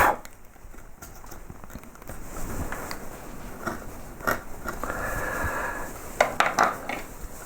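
Small woodcarving gouges cutting wood by hand: short paring and slicing strokes, with crisp clicks as the tool bites, several in quick succession near the end.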